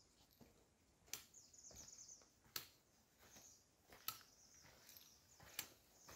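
Faint footsteps and trekking-pole tips striking a dirt trail: sharp ticks about every second and a half with soft scuffing between.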